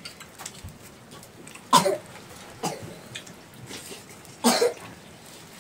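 A person coughing: two short, loud coughs nearly three seconds apart, with a fainter one in between.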